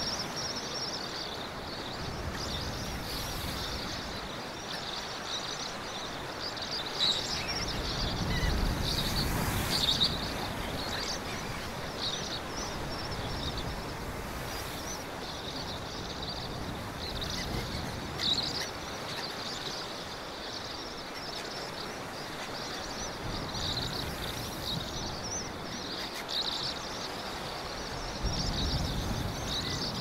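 Sea surf washing in with a steady hiss that swells twice, about eight seconds in and near the end, under a continuous chorus of high chirping.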